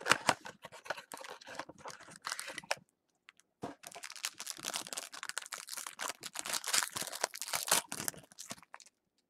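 Shiny trading-card pack wrapper crinkling and rustling as hands handle it and the cards, in two stretches with a short break about three seconds in.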